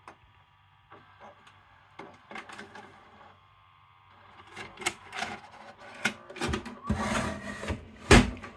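VCR tape mechanism whirring faintly with small clicks while it runs its eject cycle, a mechanism the owner says has a problem. Then the VCR's metal case rubs and scrapes as it is handled on a wooden desk, ending with a loud thump about eight seconds in as it is set down.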